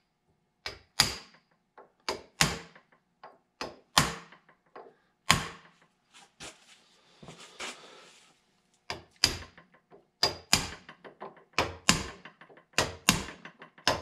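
Hammer tapping on a steel punch to bend up the lock tabs on the bolts of a John Deere B power lift piston: a long series of sharp metallic taps in irregular runs, with a brief pause and faint rustling about halfway through.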